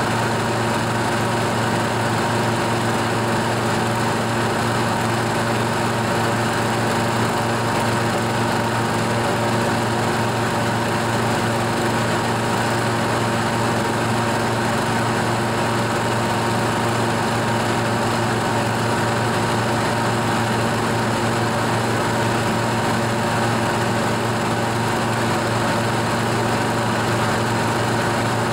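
Toro TimeMaster mower's Briggs & Stratton 8.75 OHV single-cylinder engine running at a steady speed, with no change in pitch or level.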